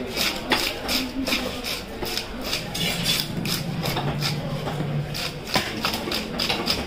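Fish being scaled and cut with a knife: irregular scraping strokes and sharp knocks, about two a second.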